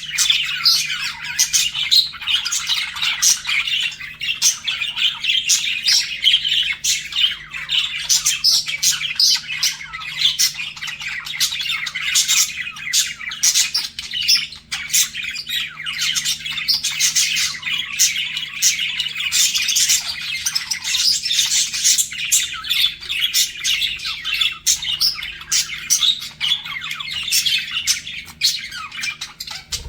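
Budgerigars chattering without a break: a dense stream of fast warbling chirps and squawks from more than one bird, the flirting chatter of pet budgies.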